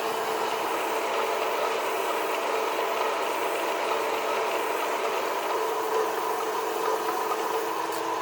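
A motor-driven workshop machine running steadily: a constant hum with a wide hiss over it and no hammer blows.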